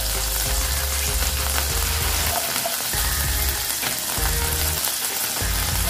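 Sliced garlic sizzling in hot oil in a frying pan, a steady, dense sizzle.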